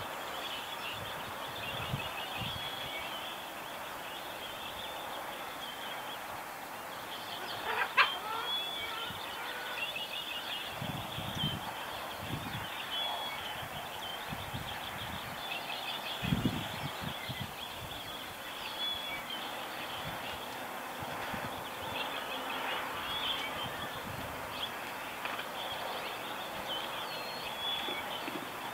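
Dawn chorus of many birds chirping and trilling, with a sharp click about eight seconds in and a few brief low bumps.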